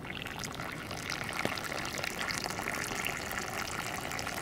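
Tea bubbling at a boil in a pot over a wood campfire, a dense, irregular bubbling crackle.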